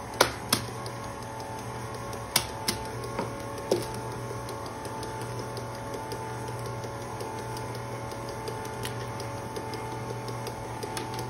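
KitchenAid stand mixer running steadily, beating cake batter, with a few sharp clicks and taps in the first four seconds.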